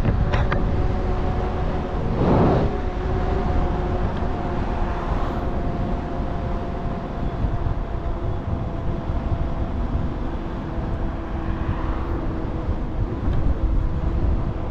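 The 12 kW hub motor of a 72-volt enduro-style e-bike whines steadily at speed, over a low rumble of wind on the microphone. There is a brief rush of noise about two seconds in.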